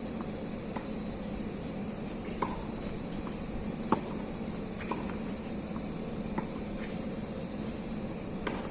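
Tennis rally: sharp, irregular pops and taps of a tennis ball off racket strings and the court, the loudest about four seconds in, over a steady background hum and hiss.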